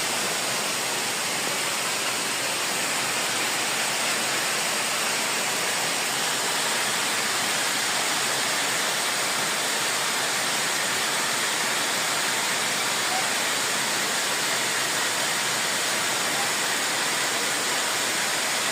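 Waterfall rushing steadily: a continuous, even noise of falling water with no breaks.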